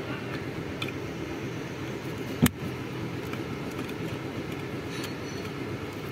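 A plastic wiring connector clicks once, sharply, as it is pushed home onto a car's electric power steering (EPS) control module, about two and a half seconds in. A steady low rumble runs underneath, with a few faint ticks of handling around it.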